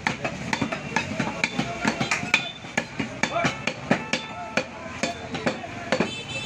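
A butcher's knife chopping beef on a wooden stump block: a quick, uneven series of knocks, about three a second, as the blade strikes through the meat into the wood. Market voices murmur underneath.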